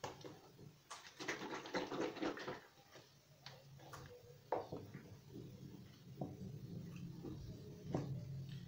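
Plastic sachets of lben (buttermilk) being handled and poured over bowls of couscous: crinkling of the packets, a dense patch about a second in, then soft pattering and a few light taps.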